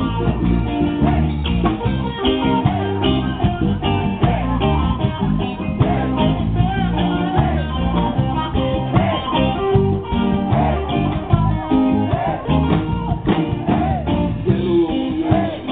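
Live band playing through a PA speaker: guitars and drums with a steady beat.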